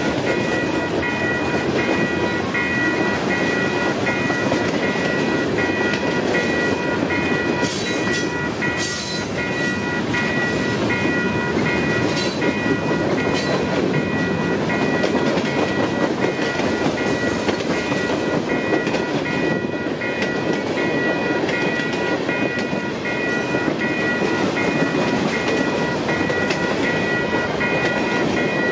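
Freight cars rolling past on steel wheels, a steady rumble and clatter. The crossing's warning bell rings in steady repeated tones over it, and there are a few sharp high screeches about eight and twelve seconds in.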